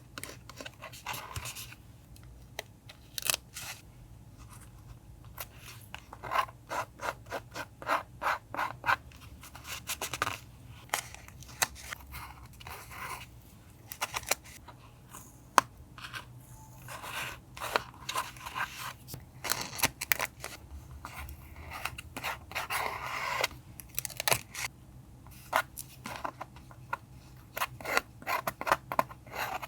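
Scissors snipping paper in runs of quick, crisp cuts, with paper rubbing and rustling in between.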